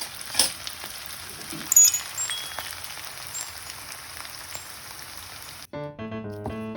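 Food sizzling in a frying pan: a steady hiss with scattered pops and a couple of light clinks. About five and a half seconds in it cuts off abruptly and background music with a plucked melody starts.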